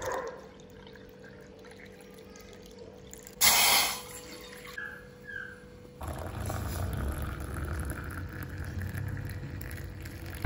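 Liquid poured into a glass mug: a faint trickle at first, a short loud rush of noise about three and a half seconds in, then from about six seconds a steady, louder pour of hot water from an electric kettle as the mug of black coffee fills.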